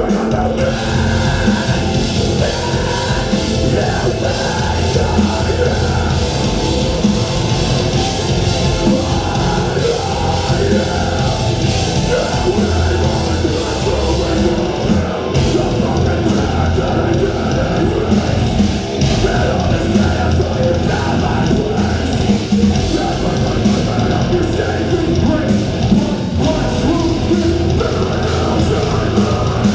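A live heavy rock band playing loudly: distorted electric guitars, bass and a drum kit with a vocalist. The full band comes in right at the start, over a sustained synth-like intro.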